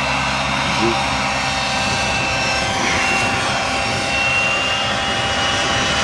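Radio-controlled model helicopter in flight: a steady high-pitched whine from its motor and rotors that drifts slightly in pitch as it manoeuvres.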